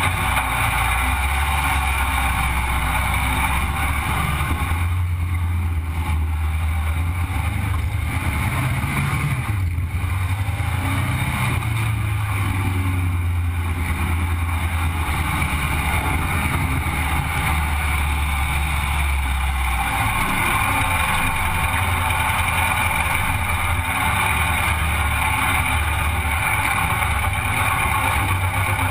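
Sandrail's engine running under way. Its pitch rises and falls a few times around the middle and settles lower about two-thirds of the way through, over a steady rush of noise.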